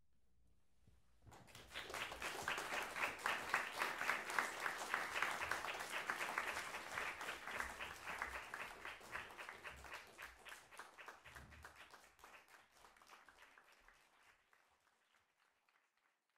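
Audience applauding: the clapping breaks out about a second in, stays full for several seconds, then thins out and dies away near the end.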